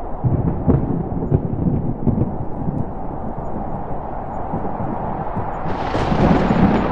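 A deep, continuous rumbling sound effect of the thunderstorm or earthquake kind, surging unevenly. Near the end a brighter hiss joins it and stays.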